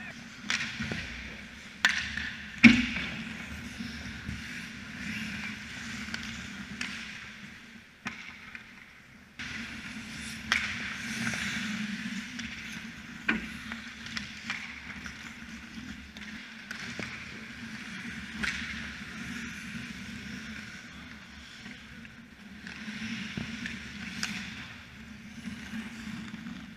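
Ice hockey play: skate blades scraping across the ice, with sharp clacks of sticks and puck now and then, the loudest about three seconds in, over a steady low hum.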